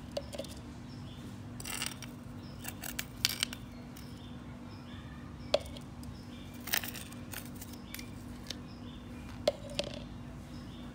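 A metal spoon scooping soil into a clear jar: scattered scrapes, and several sharp clinks of the spoon against the jar, over a steady low hum.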